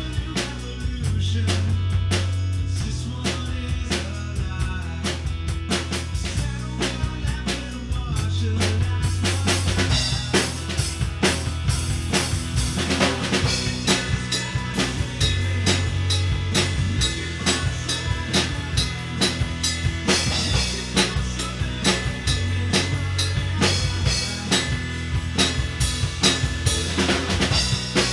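Acoustic drum kit played in a steady rock beat, with bass drum, snare and cymbals, over a recorded rock backing track whose bass line runs underneath.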